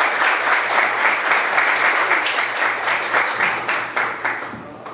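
Small audience applauding, a steady patter of many hands clapping that thins out and dies away near the end.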